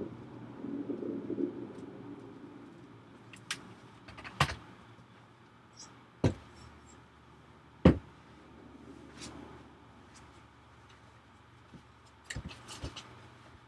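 Sharp clicks and knocks of a 2006 17-inch iMac's plastic housing being handled and snapped back together during reassembly, one every second or two, with a quick cluster near the end; the loudest knock comes about eight seconds in.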